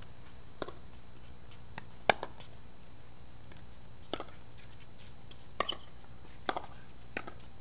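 Pickleball rally: paddles striking the plastic ball, a series of sharp knocks roughly every second, some in quick pairs, the loudest about two seconds in.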